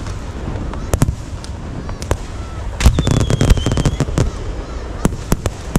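Aerial fireworks going off: a string of sharp bangs and crackles over a low rumble. A dense burst of crackling comes about three seconds in, with a brief high whistle.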